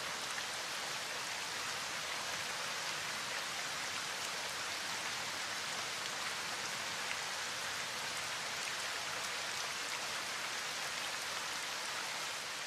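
Steady rain falling, an even hiss of many drops that holds at the same level throughout.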